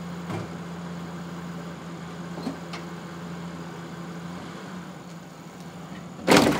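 Ford Ranger pickup's engine idling steadily, with a few light clicks, then a loud bang about six seconds in as the truck pulls forward on the chain hooked to the Taurus's bent B-pillar.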